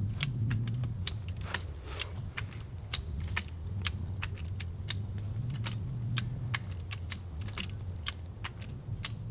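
A ratcheting log jack being pumped by hand: a quick, irregular run of metal clicks and clacks as its pins step up into the holes of the rail while it lifts and rolls a heavy log. A steady low hum runs underneath.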